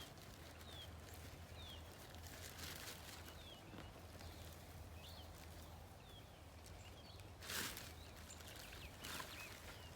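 Faint outdoor background in which a small bird repeats short, high chirps that fall in pitch, about one a second. A few brief rustling or scraping noises from handling soil come through, the loudest about seven and a half seconds in.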